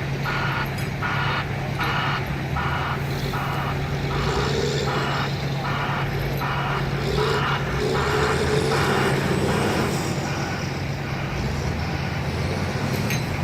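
Backup alarm of a heavy vehicle beeping about twice a second over its steadily running diesel engine. The beeping stops about three-quarters of the way through, and the engine keeps running.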